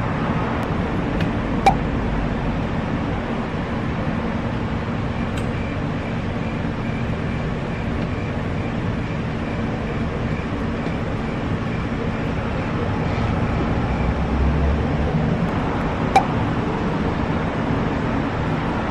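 Steady outdoor traffic and engine noise at a gas station forecourt, with a low hum. Two sharp clicks sound, one about two seconds in and one near the end.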